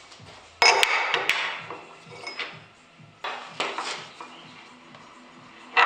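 Sharp metallic clinks and clattering knocks, the loudest a cluster about half a second in and another near the end, over quiet background music with a low repeating bass line.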